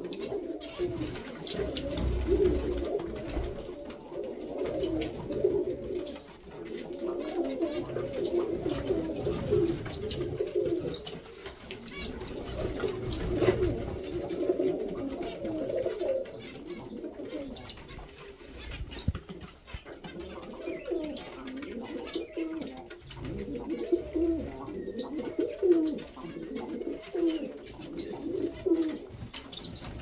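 Domestic pigeons cooing almost without a break, a low warbling coo that swells and fades in waves, with many short, high chirps from zebra finches scattered through it.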